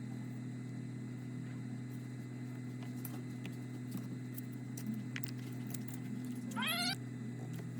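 Steady low electrical hum with a few faint clicks, and about six and a half seconds in a short, rising cat meow.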